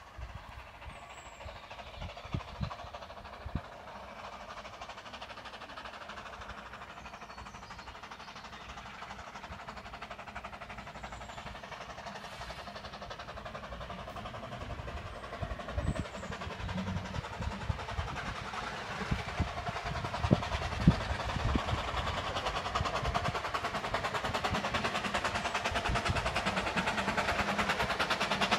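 A train approaching, its running noise growing steadily louder throughout, with a few low thumps along the way.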